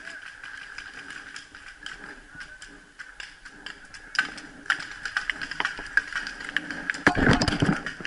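Paintball markers firing in short strings of sharp pops and clicks, thickening from about halfway through. Near the end comes a louder, closer clatter.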